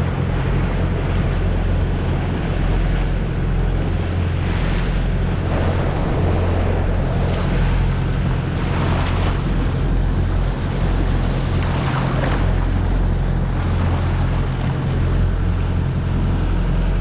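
A boat running at trolling speed through chop: water rushing and spraying along the hull, with wind buffeting the microphone and a steady engine drone underneath. A few louder splashes rise out of the wash as the bow meets waves.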